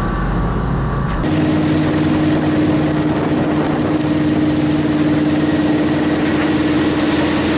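Airboat engine running steadily, a loud even roar with a steady low hum. The sound changes abruptly about a second in.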